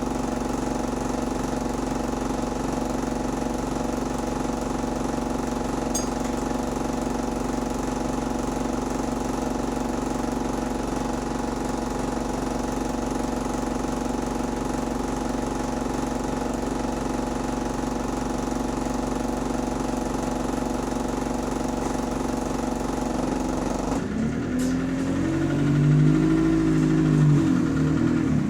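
A bus engine, which the title says has a rod knock, runs with a steady drone. About 24 seconds in the sound changes: the engine note rises and then falls, getting louder toward the end, as the revs climb and drop.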